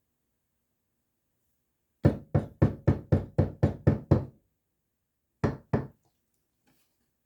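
A cake pan full of pound cake batter knocked against the countertop to drive out air bubbles: a quick run of about nine sharp knocks, roughly four a second, then two more after a short pause.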